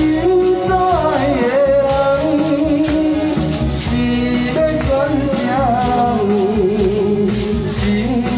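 A man singing a Taiwanese Hokkien song into a microphone over recorded backing music with a steady beat.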